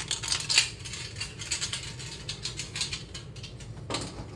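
Rapid, irregular metallic clicking and rattling as spring toggle bolts are threaded through a perforated steel microwave mounting plate, the bolts and toggle wings knocking against the plate.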